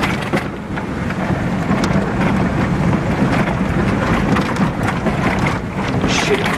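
Toyota Landcruiser HJ75 ute driving on a wet, muddy track in heavy rain, heard from inside the cab. Its engine runs under a steady, loud rumble of tyres and rain on the vehicle.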